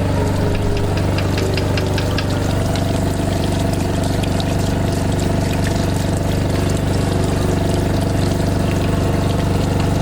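A loud, steady machine drone with a hiss like spraying water, in the manner of a motor-driven pump.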